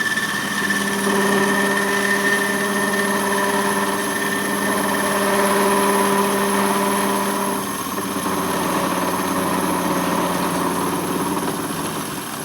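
Metal lathe running under a cut as the tool is fed into a metal workpiece: a steady machine hum with a higher whine. The tone changes about eight seconds in.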